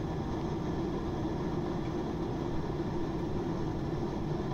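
Steady cabin noise of an airliner in flight: an even drone of engines and rushing air with a low hum running through it.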